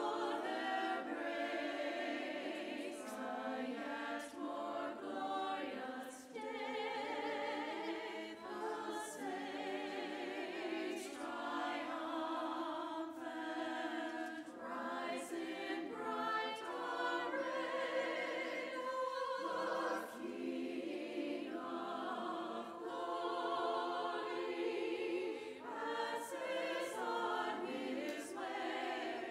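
Small women's choir singing in held notes that move in steps, in phrases with short breaks between them.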